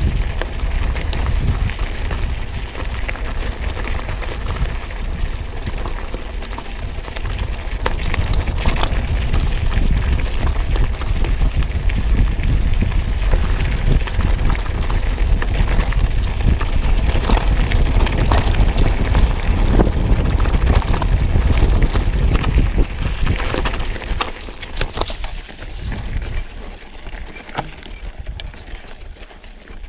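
Wind buffeting the microphone over the crunch and rattle of a 2019 Trek X-Caliber 9 29er hardtail mountain bike's tyres rolling over a gravel and dirt track, with many small clicks and knocks from stones and the bike. The wind rumble and overall loudness drop away about 25 seconds in.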